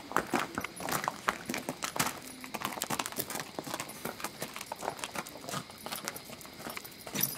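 Hooves of a Quarter Horse yearling walking on a gravel drive: an irregular run of crunching steps, with the handler's footsteps alongside.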